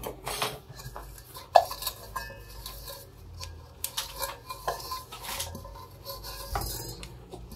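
Stainless-steel camping cookware (pot, plates, cups) being handled and set down: scattered metal clinks and knocks, one ringing briefly about a second and a half in.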